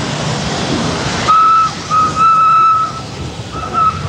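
Steam locomotive Lion hissing steam, then its steam whistle sounding on one steady note in several blasts from about a second in: a few short toots and one longer blast.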